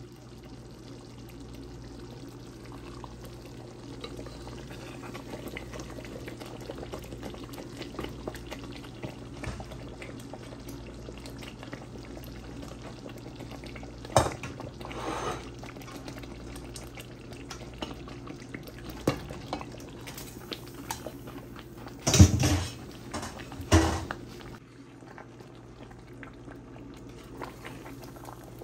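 Tomato sauce bubbling and simmering in a pot over a steady low hum, with a wooden spoon stirring and clicking against the pan. A few louder knocks of utensils on the pot about two-thirds of the way through.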